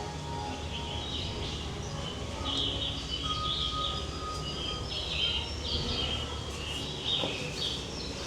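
Birds chirping repeatedly, many short calls overlapping, over a steady low background hum.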